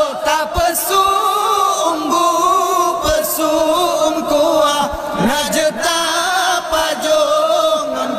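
A group of men chanting a melodic Acehnese wake-up call for the sahur meal, their voices holding long, wavering notes together.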